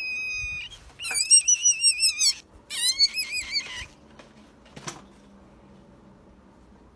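Baby rabbit squealing in high, thin cries. A long falling note runs into the first half second, followed by two bouts of wavering squeals that end about four seconds in. A single soft click comes near five seconds.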